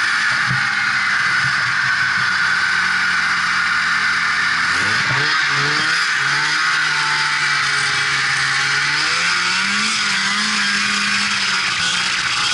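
Polaris Indy Sport 340 two-stroke snowmobile engine running under way over a steady hiss. Its pitch drops and wavers about five seconds in, then climbs again a couple of seconds before the end.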